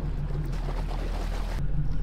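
Boat engine running with a steady low hum, under a hiss of wind and sea that drops away near the end.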